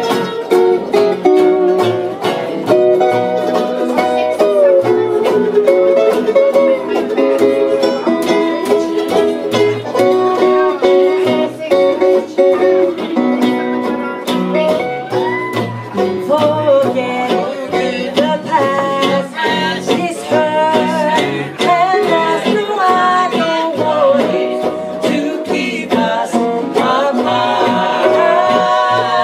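Live acoustic string band playing a country-blues tune: a resonator steel guitar played lap-style, acoustic archtop guitars, double bass and banjo, with a voice singing.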